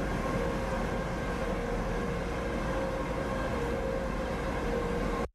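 Steady machinery drone heard inside the enclosed car deck of a car carrier under way: an even rumbling hum with a steady whine running through it, cutting off suddenly near the end.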